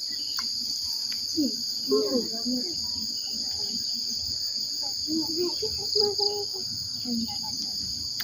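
Steady, high-pitched chorus of insects, crickets or cicadas, droning without a break, with faint children's voices chattering in the background.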